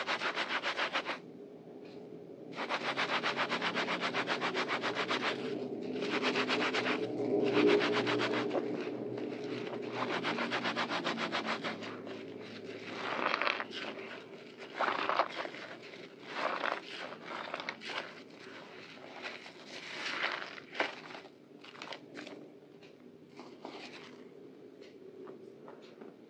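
A soaked white bar of soap and a wet scrub sponge rubbed hard together in foamy water, a rapid, even scrubbing of many strokes a second in long runs. After about twelve seconds it turns to separate wet squishes as the lathered sponge and foam are squeezed by hand, growing fainter near the end.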